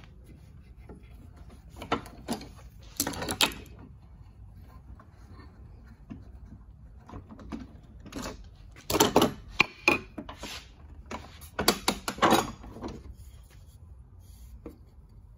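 Metal bar clamps and boards being handled on a wooden workbench: several clusters of knocks, clatters and short scrapes as the clamps are released and laid down and the wood is moved.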